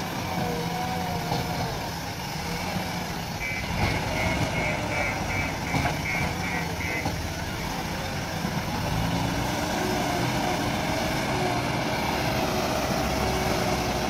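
JCB 3DX Plus backhoe loader's diesel engine running steadily under work. About three and a half seconds in, its reversing alarm beeps about two and a half times a second for roughly three seconds.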